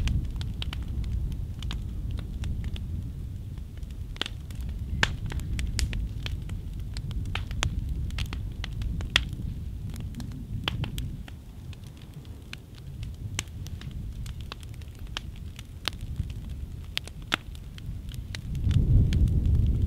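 Wooden upright piano burning: the fire crackles with frequent sharp pops and snaps over a low rumble of flame, which swells near the end.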